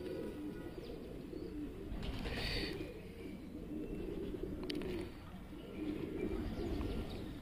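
Domestic pigeons cooing faintly in low, repeated coos, with a brief rustle about two seconds in.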